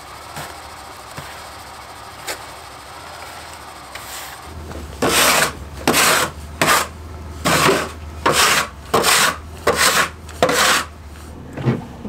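About nine loud rasping, scraping strokes, roughly one every two-thirds of a second, beginning about five seconds in, over a low steady hum.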